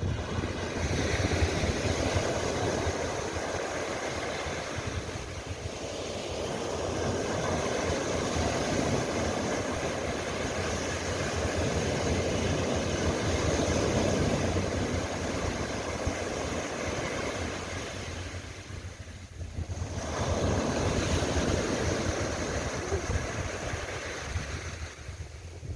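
Surf on a sandy beach: waves breaking and washing up the shore in long swelling and fading rushes, with a brief lull about three quarters of the way through. A low wind rumble on the microphone runs underneath.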